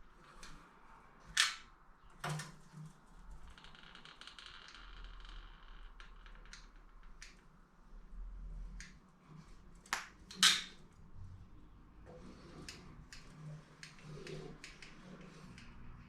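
Hand work applying automotive seam sealer around a sheet-metal patch panel: scattered small clicks and taps, with a few sharp louder knocks and a brief hiss near the start.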